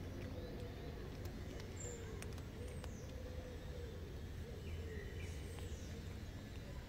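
Steady low outdoor rumble with a few faint, high bird chirps and a handful of soft clicks.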